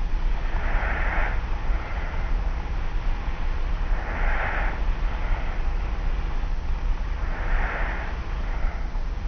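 Slow, light snoring breaths of a young adult asleep on their back, three soft airy breaths about three and a half seconds apart. Under them runs a steady hiss and low hum from an old tape recorder.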